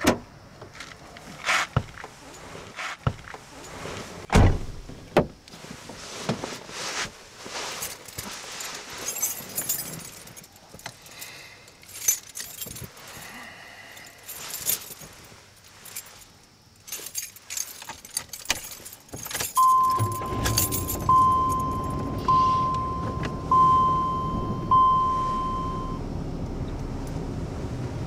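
Keys jangling and scattered clicks and rustles as someone settles into an old car's driver's seat. About two-thirds of the way through the car's engine starts and runs at a steady idle, while a warning chime dings five times, each ding fading out.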